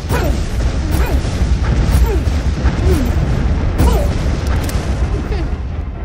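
Cartoon action sound effects: a heavy low rumble with booms and crashes about once a second, and short falling pitch sweeps over music.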